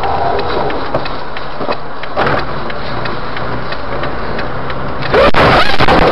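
Car engine and road noise heard from inside a vehicle through a dashcam microphone, steady, with a louder burst of noise about five seconds in.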